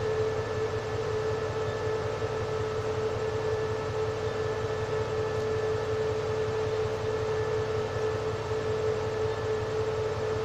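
SRT CDA5B1 diesel-electric locomotive idling while standing: a steady low engine hum with a constant high whine over it.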